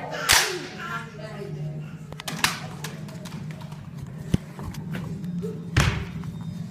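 Several sharp impact sounds, the loudest just after the start and another about six seconds in, with a voice briefly at the start, over a steady low hum.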